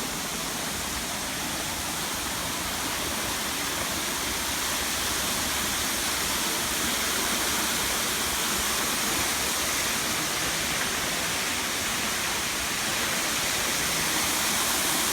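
Steady rushing noise, slowly growing a little louder, with an unsteady low rumble beneath it.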